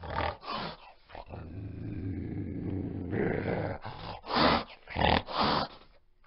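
Tiger growling: a low, steady rumble broken by short loud bursts, two near the start and three in quick succession about four to five and a half seconds in.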